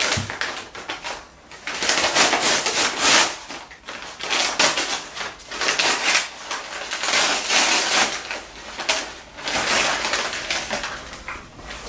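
Brown kraft paper wrapping rustling and crinkling in irregular bursts as it is handled and pulled open around a potted plant.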